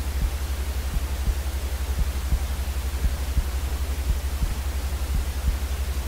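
Steady hiss of white noise, the kind played to soothe a crying baby to sleep, over a low hum that pulses rapidly several times a second.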